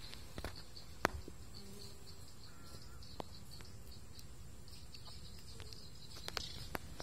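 Faint insect chirping in a quick series of short high pulses, with a few sharp clicks, the loudest about a second in.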